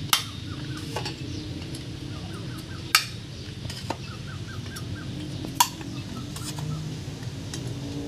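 Sharp metallic clinks of engine valves being handled against a Suzuki F6A aluminium cylinder head, four in all, the loudest near the start and at about three and five and a half seconds. Bird calls run faintly in the background.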